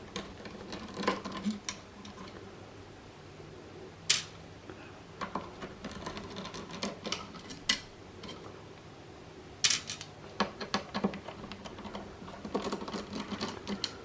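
Small screws being taken out of an Xbox One S console's plastic casing with a screwdriver: scattered light clicks and ticks, with sharper clicks about four seconds in and again near ten seconds.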